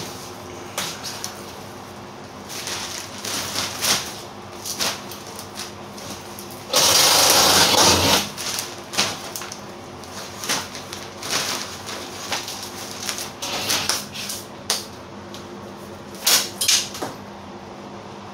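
Cordless drill running in one burst of about a second and a half, about seven seconds in, amid scattered knocks and handling clatter, over a steady hum.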